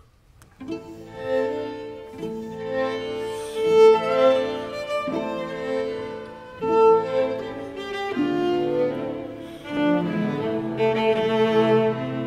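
Background music of bowed strings, violin and cello, playing sustained notes that change every second or two, starting just under a second in.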